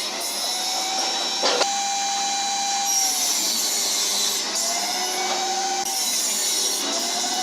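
Electric power tool working wood: its motor whine climbs, holds steady and drops away again about three times as it is run and eased off. A sharp knock comes about a second and a half in.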